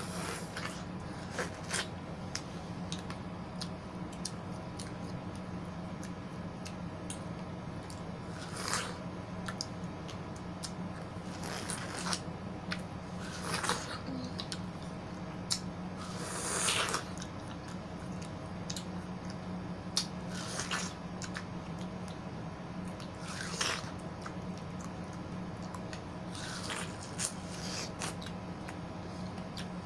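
Biting into and chewing slices of yellow watermelon, with about eight short, louder bites at irregular moments. A steady low hum runs underneath.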